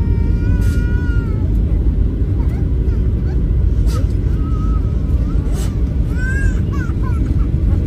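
Steady low vehicle rumble, with several short, high-pitched wavering cries over it: one near the start, one about halfway and a cluster near the end.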